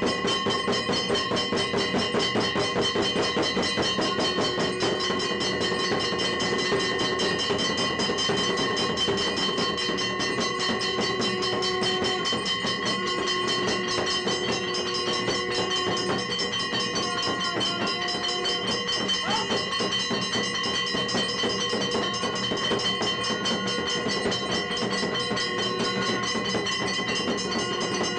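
Temple bells and percussion struck rapidly and without a break: a dense, even clanging rhythm over steady ringing tones.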